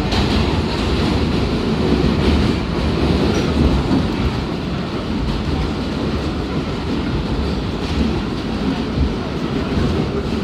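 New York City Q subway train running on elevated track, heard from inside the car: a steady rumble of wheels on the rails with a clickety-clack of rail joints.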